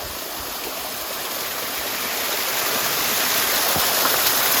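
Running water, a steady rushing like a small stream, growing steadily louder.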